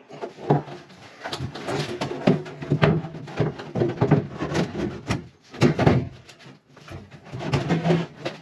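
Bathtub being lowered and shifted into its alcove: a run of irregular knocks, bumps and scrapes of the tub shell against the wall framing and floor.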